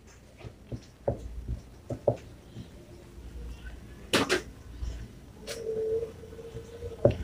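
Marker writing on a whiteboard: faint scratches and soft taps, with one sharper click about four seconds in and a short steady squeak-like tone near the end.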